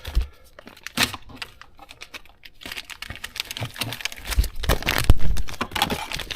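Packaging crinkling and rustling as parts are handled, with scattered small clicks and knocks that get busier about halfway through.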